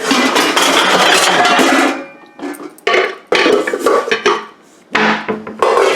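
A pot clattering as it is handled and set down: a long rattle for about two seconds, then several shorter clanks.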